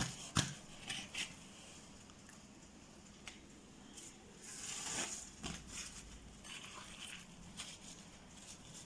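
Faint rustling and crinkling of thin warqa pastry sheets being gathered and pressed by hand, with a few small clicks and a louder rustle about five seconds in.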